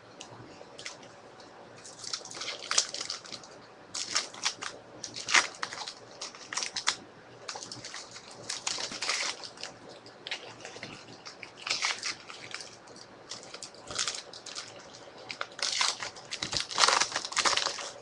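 Card-pack wrappers and packaging crinkling and rustling in irregular short bursts, as sealed trading-card packs are opened and handled.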